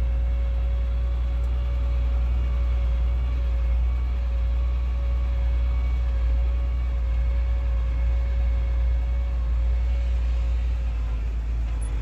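MB-trac 1300's six-cylinder turbo diesel engine running steadily, heard from inside the cab as a deep rumble. A steady high note rides over it and fades out near the end.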